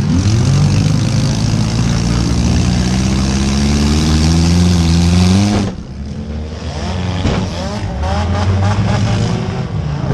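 Compact car engines revving hard in a demolition derby: one engine climbs steadily in pitch for about five seconds, then drops off abruptly. The engines rev up again afterwards, with a single knock soon after the drop.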